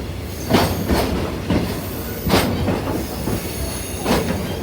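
Passenger train cars rolling along the track, heard from the vestibule between two cars: a steady rumble broken by a few sharp clunks and rattles, with a faint high squeal from the wheels.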